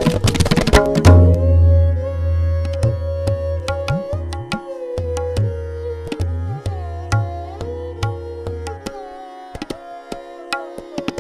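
Tabla solo: a fast, dense run of strokes in the first second, then slower, spaced strokes with deep bass-drum notes that swoop upward in pitch. Underneath, a dilruba plays the sustained, repeating lehra melody.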